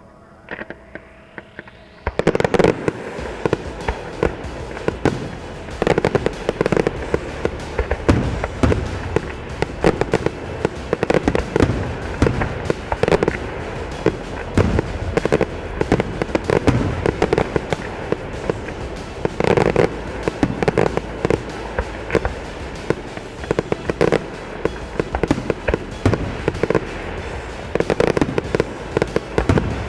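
Fireworks display: after a quieter opening, a dense, continuous barrage of rapid bangs and crackling begins about two seconds in and keeps going.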